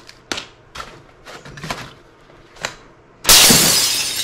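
Unboxing handling noise: a few short taps and rustles of cardboard and paper packaging, then about three seconds in a loud crinkling of a clear plastic bag that fades over about a second.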